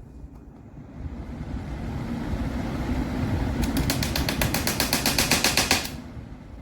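Pelonis 20-inch box fan running, its airflow rumbling on the microphone and growing louder from about a second in; from about halfway through, a fast, even clicking of about ten ticks a second joins in, then stops near the end.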